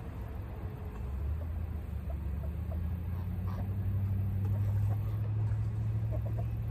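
Low, steady engine rumble that swells about a second in and is loudest around four to five seconds in, with faint short chirps over it.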